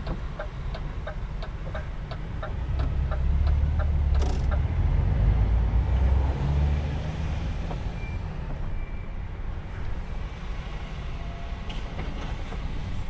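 Inside a truck cab: the indicator ticks about three times a second, then the engine pulls harder and its low rumble swells for a few seconds before settling back to steady driving noise. A single sharp knock comes about four seconds in.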